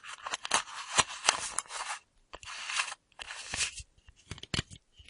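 Screw cap of a full metal flask being twisted open and shut: rough scraping of the threads in several short turns, followed by a series of sharp clicks and knocks.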